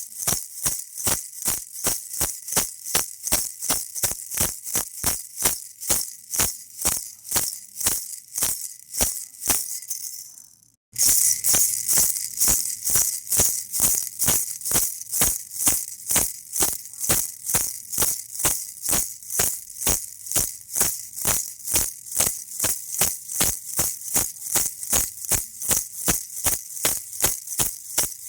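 Baby rattle shaken in a steady rhythm, about three shakes a second, giving a crisp, high rattle. About ten seconds in it fades away, drops out for a moment, then starts again louder.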